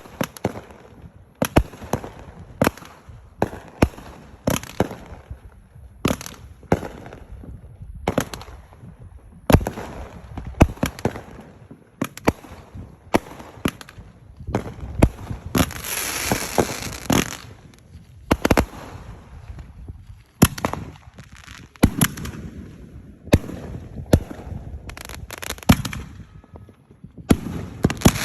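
Fireworks going off one after another, sharp bangs about one to two a second, with a stretch of dense crackling about halfway through.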